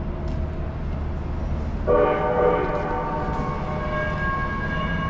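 A long horn chord of several steady notes starts suddenly about two seconds in and holds, over a low steady city rumble.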